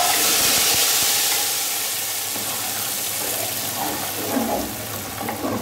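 Hot oil with browned fried onions poured into a pot of thick khichra, setting off a loud sizzle that starts suddenly and slowly dies down.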